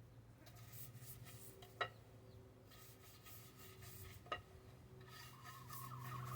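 Faint rubbing or scraping in two spells, with two sharp clicks, over a steady low hum.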